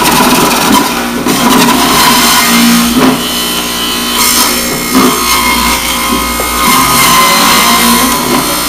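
A Jack LaLanne electric centrifugal juicer runs with its motor whirring continuously while kale is pushed down the feed chute with the plunger and ground up.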